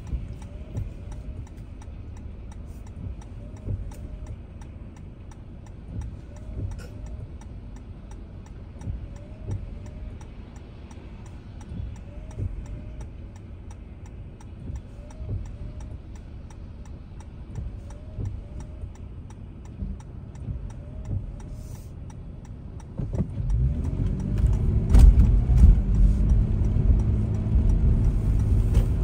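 Car engine and cabin rumble at a standstill with a regular light ticking. About 23 seconds in, the car pulls away and its engine and tyre noise on the wet road get markedly louder.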